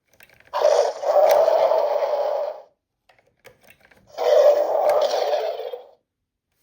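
Electronic dinosaur roar played through the small built-in speaker of a Mattel Jurassic World Epic Attack Spinosaurus toy, heard twice, each about two seconds long.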